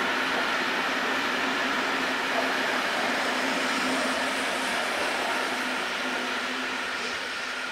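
Passenger coaches of a train rolling past on the track: a steady noise of wheels on rail that eases slightly toward the end as the last coaches go by.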